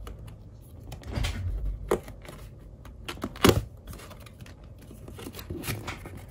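Cardboard toy box being handled, its printed sleeve sliding off the brown inner box: cardboard scraping on cardboard, with several knocks, the loudest about three and a half seconds in.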